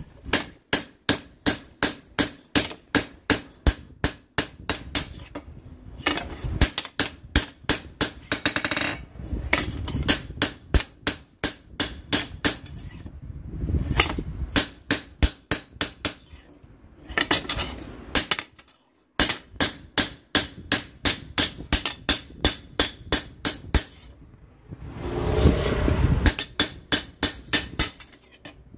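Hand hammer striking a red-hot steel cleaver blade on an anvil: a steady run of sharp metal-on-metal blows, about three a second, broken by short pauses and two brief stretches of rushing noise.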